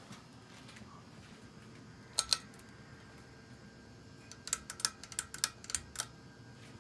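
Hunter Low Profile II ceiling fan humming faintly, with sharp clicks over it: two close together about two seconds in, then a quick run of about eight more from about four and a half seconds in.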